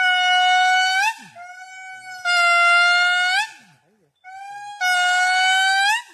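Lemur giving three long, steady, pitched calls, each with a soft lead-in, then held loud for about a second and turning up in pitch at the end.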